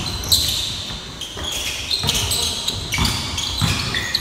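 Basketball game play on a gym court: sneakers giving many short, high squeaks on the floor, with the low thud of the ball bouncing every second or so.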